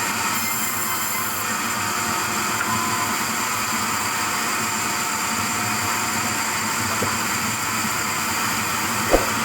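Sawmill machinery running steadily, an even mechanical noise with a faint whine in it, and one sharp knock near the end.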